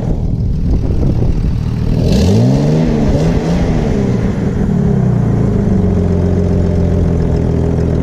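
Car engine idling, revved up and back down twice in quick succession about two seconds in, with a short hiss at the first rev, then settling back to a steady idle.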